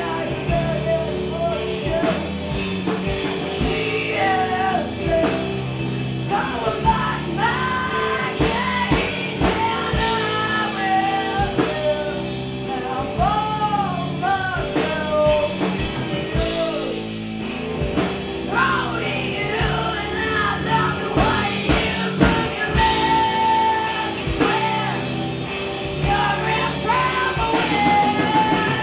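Live punk rock band playing: a lead vocalist singing over electric guitar, electric bass and a drum kit, with a steady drum beat throughout.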